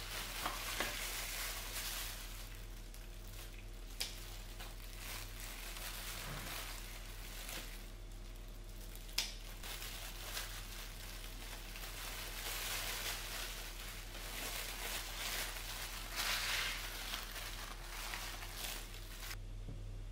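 Gritty rustling of potting soil being scooped, poured and pressed into a pot, coming in uneven spells, with a couple of sharp knocks; a steady low hum sits underneath.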